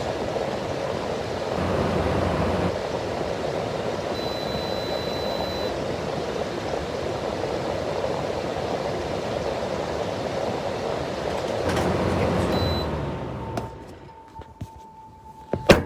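Window air conditioner running on its blower fan alone, a steady whooshing hum, because the compressor will not kick on. The fan winds down about three and a half seconds before the end, and a sharp click follows near the end.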